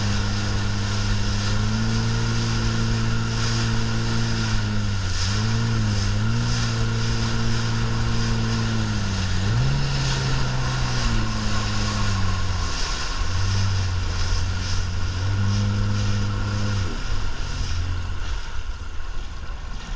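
Motorboat engine running under way, its pitch wavering about five seconds in, rising near ten seconds and dropping back, over a steady rush of water spray and wind. Near the end the engine tone fades, leaving mostly water and wind.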